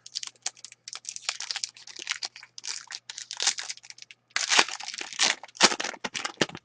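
Foil wrapper of a hockey card pack being torn open and crinkled by hand, an irregular run of crackles, loudest in two bursts about four and a half and five and a half seconds in.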